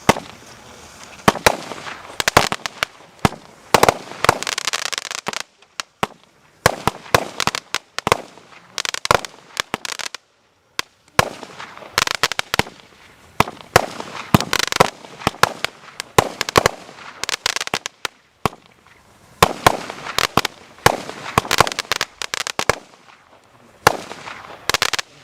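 Multi-shot fireworks cake firing volley after volley of sharp bangs, many of them followed by crackling, with brief pauses between groups of shots.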